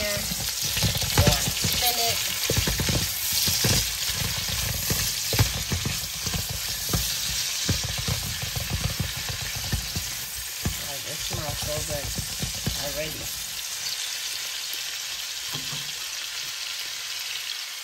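Garlic, onions and thyme sizzling in hot oil in a cooking pot while being stirred. The stirring knocks and scrapes against the pot over roughly the first ten seconds, then the sizzle carries on with little stirring.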